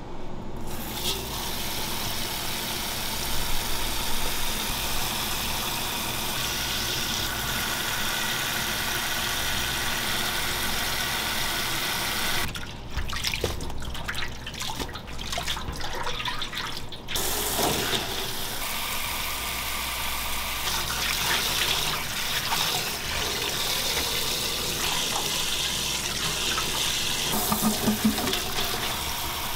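Sink tap running onto salad greens in a perforated stainless-steel colander, water splashing through the leaves. The flow drops away for about four seconds near the middle, with a few light knocks, then runs again.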